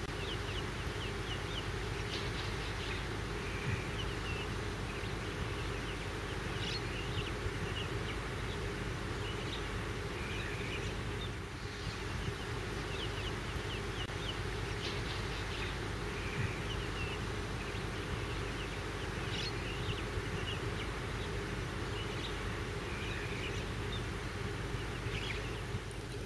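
Outdoor ambience: a steady low hum and rumble with many short, high chirps scattered throughout.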